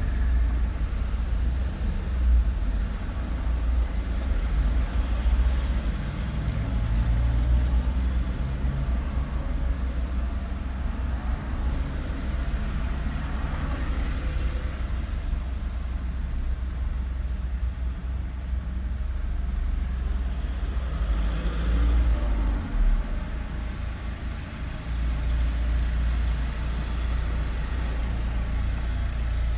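Street traffic: a steady low rumble of cars and heavier vehicles, with a couple of louder vehicles passing by.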